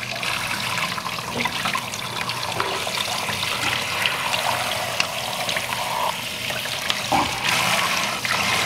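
Tap water running steadily and splashing over chicken intestines held under the stream as they are rinsed and pulled clean by hand, with small wet splatters throughout.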